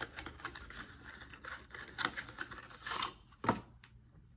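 Handling a small cardboard skincare box and sliding a dropper bottle out of it: scattered rustles and light clicks, with a few sharper taps about two, three and three and a half seconds in.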